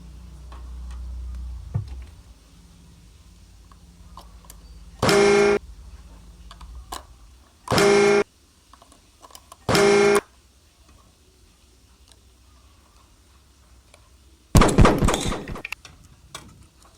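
A toy vehicle's electronic horn giving three short, identical honks about two and a half seconds apart, followed later by a louder, noisy burst of sound effect. A low rumble plays briefly at the start.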